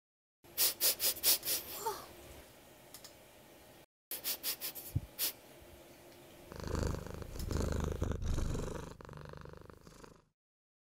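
Animation sound effects: a quick run of about seven sharp clicks, a second run of clicks about three seconds later, then a low rough sound for about three and a half seconds that cuts off suddenly.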